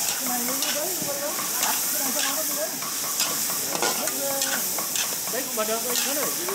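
Fresh squid sizzling in a large wok while being stir-fried with a metal spatula and ladle. The utensils scrape and knock against the pan a few times a second over a steady sizzle.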